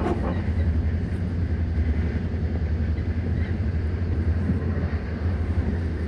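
Steady low rumble of a moving train, with a brief click right at the start.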